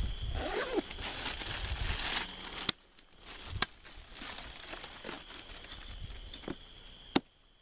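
A crinkling rustle for the first couple of seconds, then several sharp knocks about a second apart as a machete cuts at freshly dug cassava roots.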